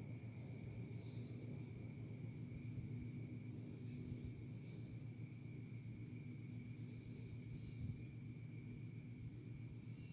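Crickets trilling steadily at a high pitch over a low background hum.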